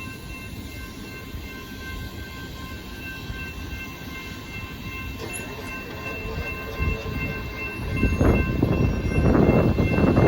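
Union Pacific intermodal freight train rolling past with a steady low rumble of its railcars, faint steady high-pitched tones riding over it. A louder rushing noise swells in near the end.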